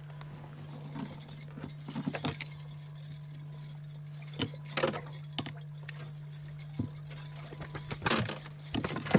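Scattered clinks, rattles and knocks of gear being handled in an aluminium fishing boat, over a steady low hum.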